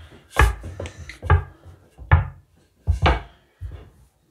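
Wooden rolling pin knocking and rolling on a countertop as dough is rolled out, a sharp thud about every second.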